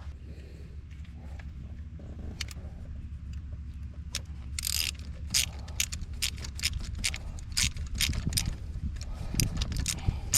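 Metal hand tools clicking and rattling in quick, irregular strikes that start about four seconds in, over a steady low rumble.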